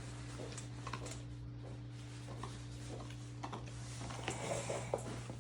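A dog licking food off a rubber lick mat: irregular small wet licking and tongue clicks, busier about four seconds in, over a steady low electrical hum.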